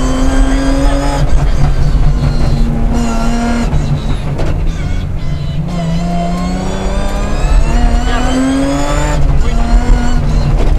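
BMW 325 Group A rally car's straight-six engine heard from inside the cabin, revving hard and rising in pitch as it pulls through the gears. The pitch drops off and climbs again three times, about a second in, near four seconds and about nine seconds in, as the driver shifts or lifts.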